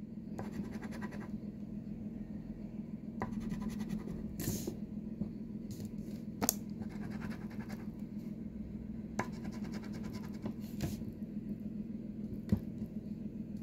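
A coin scratching a paper scratch-off lottery ticket in several short spells of quick strokes, with a few sharp taps between them, over a low steady hum.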